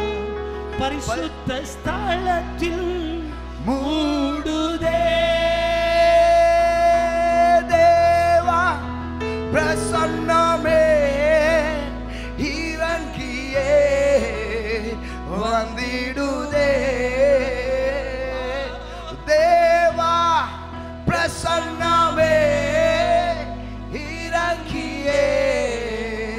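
A man singing a slow worship song into a microphone, holding long notes with vibrato, over sustained chords from a Yamaha PSR-S975 keyboard that change every few seconds.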